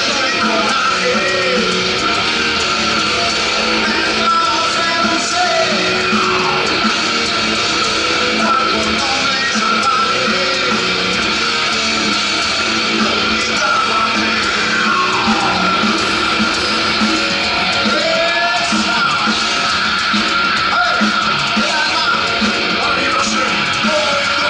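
Heavy metal band playing live at full volume, with electric guitar and drums.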